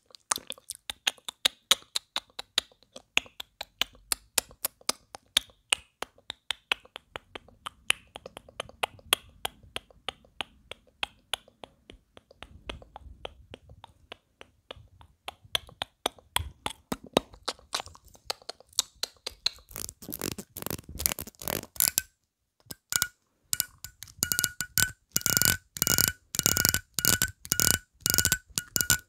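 Teeth of a comb flicked and strummed with the fingers right at a lapel microphone: a steady stream of sharp clicks, turning from about two-thirds in to faster, louder runs of ticks with a faint ringing pitch.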